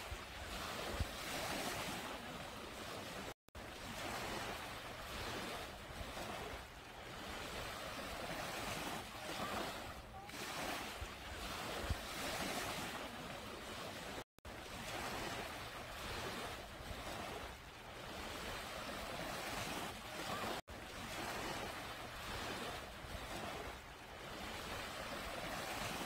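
Small waves washing up onto a sandy beach and foaming back: a steady rush of surf that swells and eases every second or two. It cuts out to silence for an instant three times.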